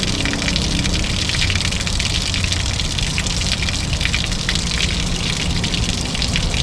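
Water gushing steadily out of an RV water heater tank through its open anode-rod port and splashing down as the tank drains.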